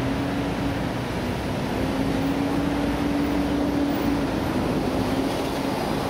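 Steady running-vehicle noise: an even rumble with a constant low engine hum through it.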